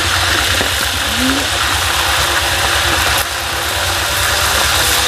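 Fish sizzling in hot oil in a steel wok as a metal spatula turns and lifts it. Under it runs a steady, fast, low mechanical rattle from an unseen machine.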